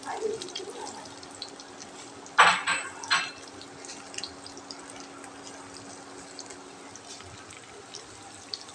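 Water splashing briefly in two quick pulses about two and a half seconds in, amid small drips and light clicks of kitchen work.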